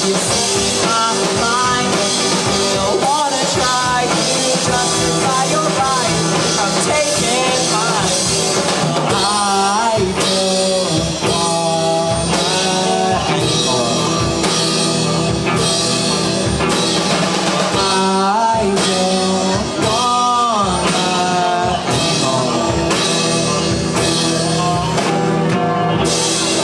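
Live rock band playing an instrumental passage: drum kit keeping a steady beat, with bass and guitar under a lead line that bends and wavers in pitch.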